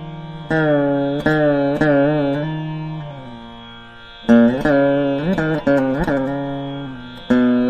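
Saraswati veena playing a slow Carnatic melody: single plucked notes that ring and fade, with sliding, wavering bends in pitch between them.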